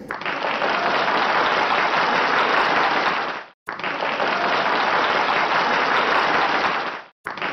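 Applause sound effect, many hands clapping in an even patter. It starts abruptly and cuts out briefly twice, about three and a half seconds apart, as a looped clip would.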